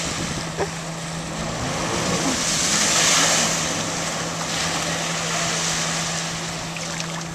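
Watercraft engine running at a steady pitch on the water, with a rushing hiss that swells about three seconds in as the jet ski sweeps past close by, throwing spray.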